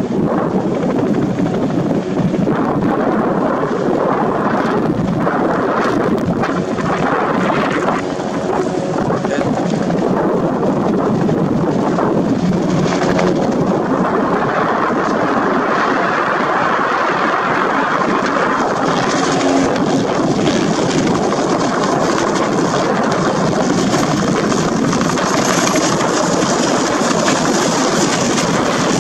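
Light helicopter with a two-bladed main rotor hovering and then coming in close: a steady rotor and engine noise that grows brighter and nearer about two-thirds of the way in.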